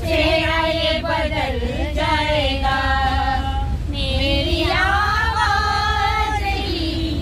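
Women's voices singing a song together without instruments, in long held, wavering notes, over the steady low rumble of a moving train carriage.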